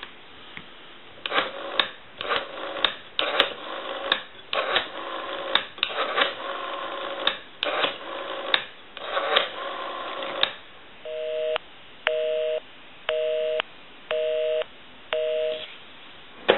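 Western Electric 5302 rotary telephone being dialed, its dial clicking in irregular runs for about ten seconds. Then a busy signal on the line: five steady two-tone beeps, half a second on and half a second off.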